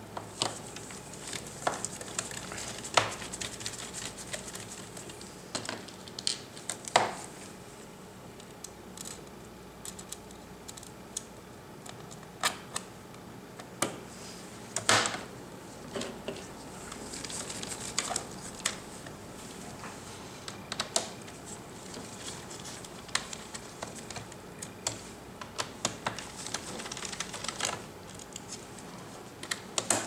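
Irregular light clicks and taps of a hex screwdriver and small screws against the plastic back case of a Dell XPS 18 as the case screws are driven back in.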